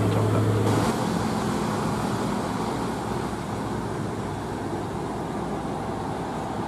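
Diesel engine of a UD Quester GWE 370 heavy truck running, mixed with road and traffic noise. A steady low hum cuts off abruptly about a second in, giving way to a rougher mix of engine and tyre noise.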